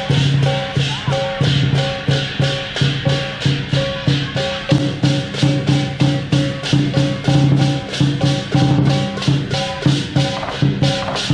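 Lion dance percussion: a big drum with clashing cymbals at about four beats a second, a fast, driving rhythm that keeps up without pause.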